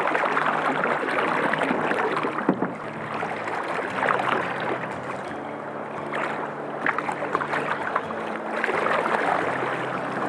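River rapids rushing and splashing around a canoe's hull, with paddles splashing through the water.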